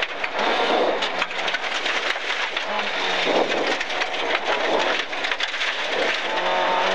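Rally car at speed on a gravel road, heard from inside the cabin: the engine running under load, its note dipping and coming back a couple of times, over a dense rattle of loose gravel pelting the underbody and wheel arches.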